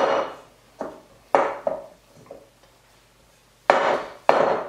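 A glass mixing bowl knocking and clunking as hands press and turn a lump of chocolate biscuit dough in it: about six sharp knocks, the last two close together near the end.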